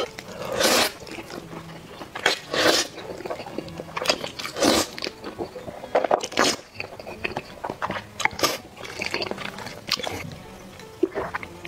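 Close-up eating sounds of a person slurping and chewing spicy noodles: about six loud slurps roughly two seconds apart, with wet chewing and smacking in between.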